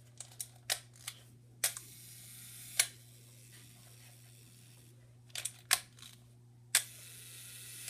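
Leica M3 rangefinder's focal-plane shutter fired twice at a slow speed of about one second: each time a click opens it, a faint whirr of the slow-speed escapement runs, and a sharper click closes it. Smaller clicks of the controls and wind-lever strokes fall between the releases, from a shutter freshly overhauled and working properly.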